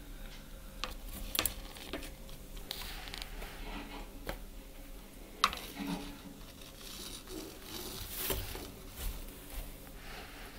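An Argus monitor being fed from metal feeding tongs: a scatter of sharp clicks, the loudest about five and a half seconds in, with light rustling between them.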